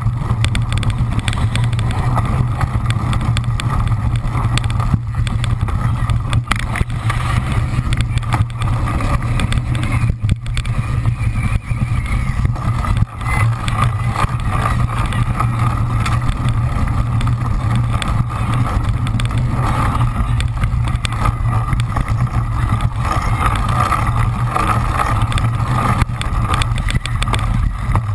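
Steady rumble and rattle of a bike-mounted camera on a cyclocross bike racing over sand and bumpy dirt, with many small knocks as the bike jolts.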